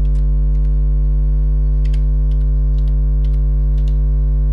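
Computer keyboard keys tapped at an irregular pace as a password is typed, about ten scattered clicks, over a loud, steady electrical mains hum.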